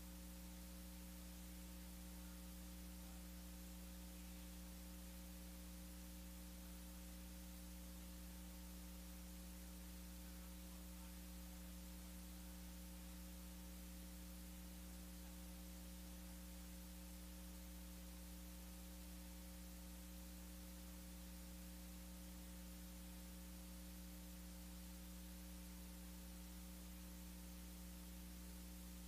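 Near silence: a steady electrical mains hum with faint hiss. Nothing changes throughout.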